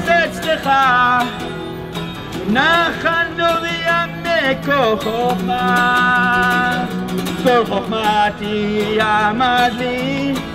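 A man singing, accompanying himself on a Takamine acoustic guitar, with one long held note in the middle.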